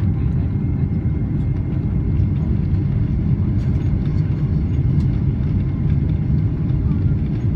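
Steady low rumble of a Boeing 777 airliner heard from inside the cabin while it descends on approach.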